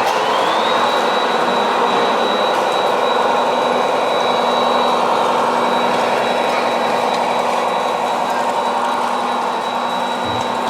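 Radio-controlled model truck pulling under load: a high electric drive whine rises in pitch over the first half second and then holds steady, over a steady engine-like drone.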